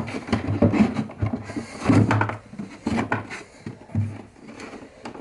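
Irregular wooden knocks, clunks and scraping as things are handled inside a timber cabinet, loudest about two seconds in.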